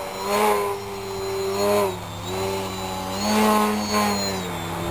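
Electric motor and propeller of a 40-inch 3DHS Edge 540 RC aerobatic plane whining in a nose-up hover, the throttle pulsed so the pitch and loudness swell about three times, near the start, a little before two seconds in, and between three and four seconds in.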